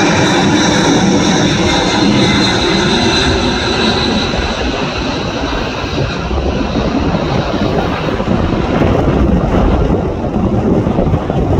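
Boeing C-17 Globemaster III's four turbofan engines at take-off climb power as the jet passes overhead and climbs away. The loud jet noise carries a high whine that fades out about halfway through, leaving a deep rumble.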